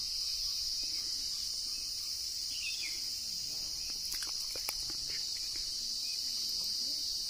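Steady high-pitched drone of insects (crickets or cicadas) in the trees, with a few faint ticks about four seconds in.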